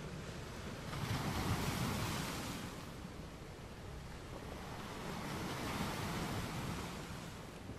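Water sloshing and washing, a rushing noise that swells twice.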